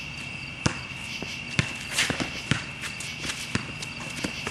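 Basketball bouncing on a hard court and players' footsteps: sharp, irregular thuds roughly every half second to second. A steady high-pitched tone runs underneath.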